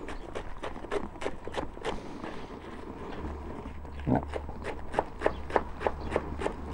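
Kitchen knife chopping fresh wild garlic leaves on a bamboo cutting board: quick, regular knife taps on the board, about four to five a second, thinning briefly a little after two seconds in.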